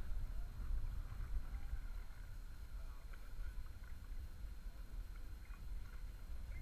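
Kayak paddle dipping and water lapping around a sit-on-top kayak, with small splashes and a steady low wind rumble on the camera microphone.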